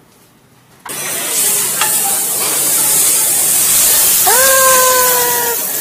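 An omelette frying in an oiled pan, a loud steady sizzle that starts suddenly about a second in. Near the end a person's voice holds one long drawn-out note over it.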